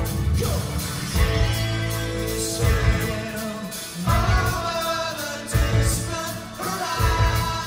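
Live progressive rock band playing with electric guitars, bass, keyboards and drums, with sung vocals over the top. Heavy low accents land about every second and a half.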